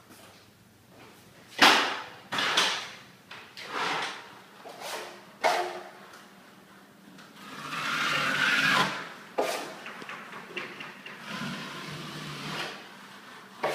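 A series of irregular sharp knocks and scuffs, spaced about a second apart, with a longer rustling scrape about eight seconds in.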